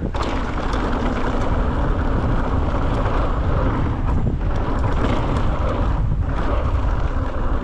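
Wind buffeting a chest-mounted action camera's microphone as a mountain bike rolls fast downhill, with the tyres running over dirt and gravel and scattered small clicks and rattles from the bike.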